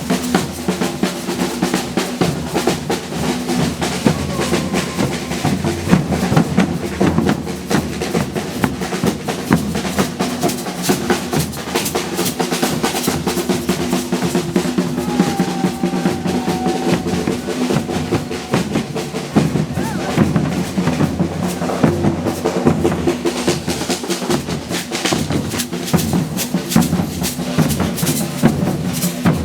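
Brazilian percussion band playing a dense, fast groove: low bass drums under many rapid snare and hand-drum strokes, kept up without a break.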